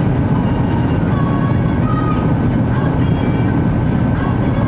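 Boeing 767-300ER jet engines and rushing airflow heard from inside the cabin: a loud, steady, deep noise on final approach before touchdown.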